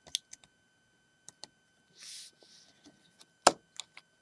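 Small plastic clicks and taps as Lego minifigures are handled and set on a Lego plate, with a brief soft rustle about two seconds in and one sharper click near the end.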